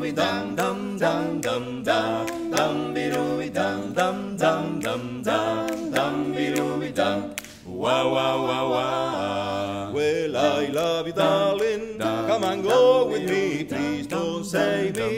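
Male barbershop quartet singing a cappella in four-part harmony: short rhythmic 'dum dum' syllables, then, after a brief break about seven and a half seconds in, longer held chords.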